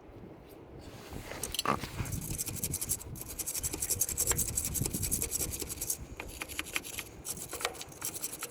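Close scratching and rubbing, a dense run of rapid strokes that starts about a second and a half in, then thins to scattered lighter scratches after about six seconds.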